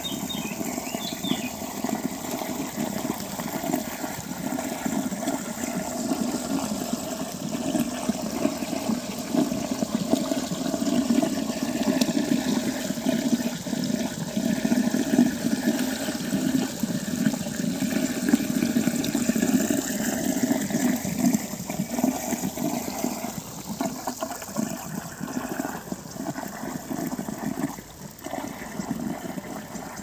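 Shallow stream flowing over a bed of pebbles and small rocks, heard close up as a steady rush and gurgle of water.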